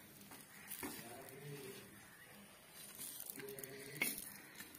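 Spatula scraping and tapping on a flat nonstick pan as toasted bread slices are spread and moved, with a few light clicks, the loudest about four seconds in, over a faint sizzle of bread frying in butter.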